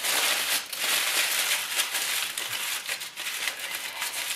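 Sheets of aluminium foil crinkling as they are gathered and scrunched shut into a pouch: dense crackling for the first couple of seconds, then more scattered crinkles.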